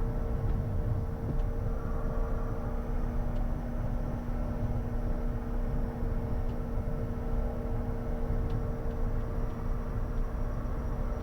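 Cockpit noise of a Bombardier Challenger 350 taxiing, its twin Honeywell HTF7350 turbofans running: a steady rumble with a few steady hums over it, a lower hum joining about a second in.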